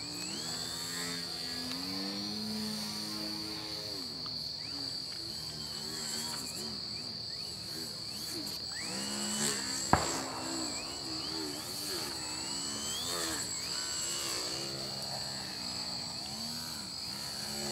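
Electric motor and propeller of a Twisted Hobbies Crack Yak foam 3D model plane, its pitch rising and falling over and over as the throttle changes through aerobatic manoeuvres. Under it runs a steady high chirr of night insects. A single sharp click comes about ten seconds in.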